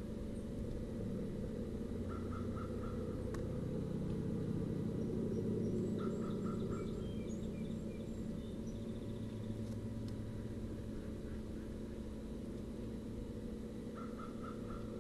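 Ospreys calling: short runs of about four quick chirps, three times, over a steady low rumble. Fainter high, thin bird notes come in between.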